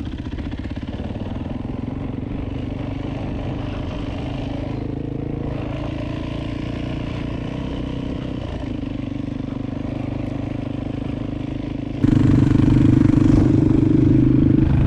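Yamaha 450 dirt bike's single-cylinder four-stroke engine running steadily at low throttle while riding. About twelve seconds in it gets abruptly louder.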